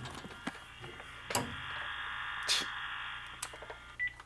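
Metal lathe running, probably taking a light cut to true up its dead center: a steady whine over a low hum, with a few sharp clicks, stopping about four seconds in.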